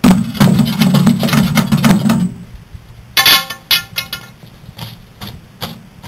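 Loud electrical arcing inside a microwave oven holding burnt wire wool and circuit-board remains: a crackling buzz that starts suddenly and lasts about two seconds, then a second, shorter burst about three seconds in, followed by a few scattered clicks.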